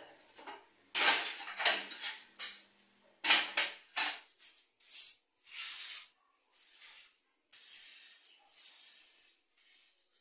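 Ceramic floor tiles clattering and clinking against each other as the dry-laid tiles are lifted and stacked, several sharp clinks in the first four seconds. After that, a series of softer scraping strokes on the concrete floor, about one a second.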